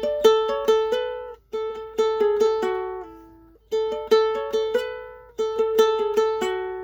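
Music: a melody of plucked string notes, each struck sharply and dying away, played in short phrases with brief pauses between them.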